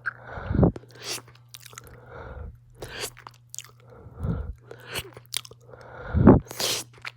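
Close-up chewing of a giant gummy bear, wet mouth and smacking sounds every second or so with louder bites about half a second, four seconds and six seconds in, and heavy breathing between them.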